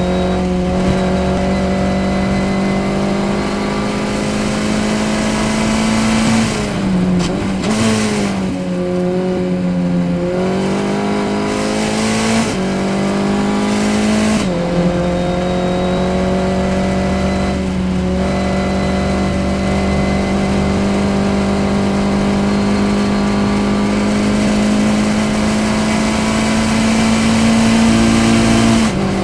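Formula Ford race car's engine heard onboard from the cockpit, running hard at high revs. About a third of the way in the pitch falls and wavers through braking and downshifts for a corner, then it climbs again through the gears, with another downshift and re-acceleration around the middle and a long steady climb that ends in a sharp gear change near the end.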